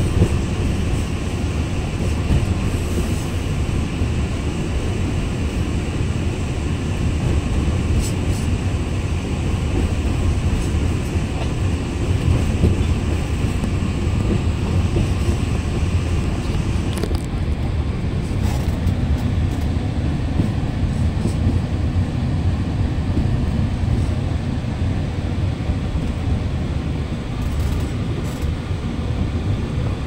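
Steady running rumble of an Alishan Forest Railway train on its narrow-gauge track, heard inside a passenger carriage, with a few faint clicks; the hiss at the top end thins out about halfway through.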